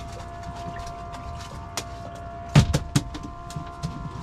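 Fishing boat's engine running with a steady hum, under scattered small clicks and knocks; about two and a half seconds in come three loud thumps in quick succession.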